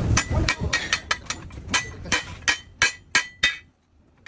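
Hammer blows on steel parts of an excavator track chain: a rapid run of sharp, ringing metallic strikes, about five a second, that stops about three and a half seconds in.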